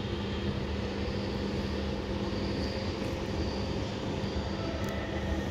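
Steady mechanical hum with a constant low drone and an even rush of noise, and a faint tick near the end.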